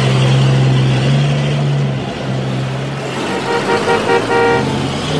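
Cartoon toy-car engine sound effect: a steady low hum that shifts pitch every second or so as the cars climb the ramp, with a few short horn toots about three and a half to four and a half seconds in.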